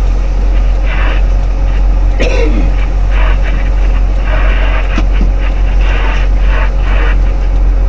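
Semi truck's diesel engine idling, heard as a steady low rumble inside the stopped cab, with short breathy hisses coming and going over it.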